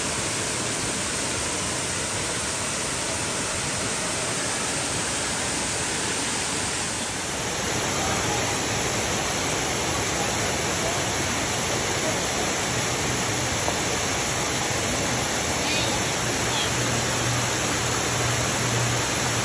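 Steady rush of running water, a little louder after about seven seconds.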